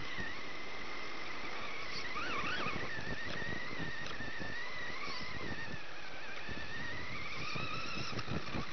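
Off-road RC car's motor whining, its pitch wavering and gliding up and down with the throttle, over a steady hiss. Short knocks from the chassis jolting over rough ground come through, more of them near the end.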